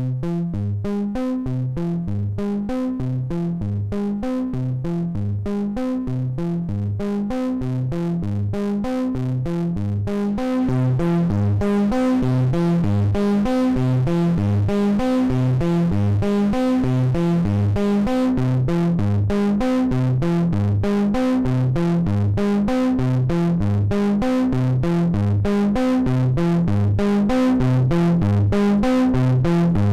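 Synthesizer sequence, a fast repeating pattern of notes, played through the Orobas Eurorack dual tube amplifier. About ten seconds in the tone turns brighter and louder as the tubes are driven harder.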